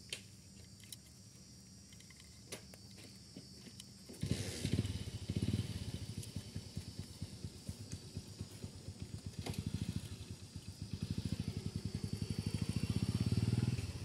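A small engine comes in suddenly about four seconds in and runs with a rapid, even low pulse, growing louder near the end. Before it, only a few faint clicks.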